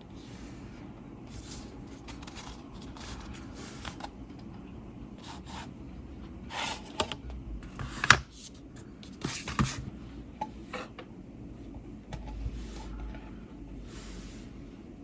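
Hands handling a CD deluxe edition's packaging: rubbing and sliding sounds in short bursts, with several sharp clicks and knocks, the loudest about eight seconds in.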